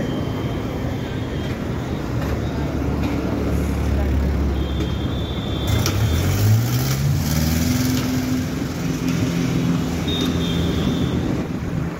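Road traffic heard from a moving bicycle: a steady low engine drone, then a nearby motor vehicle's engine climbing in pitch as it speeds up about halfway through and holding there. Two short high beeps sound, one just before the engine rises and one near the end.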